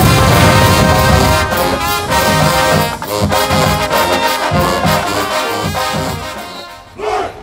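Marching band brass section playing loud held chords, with trombones and trumpets, fading out near the end.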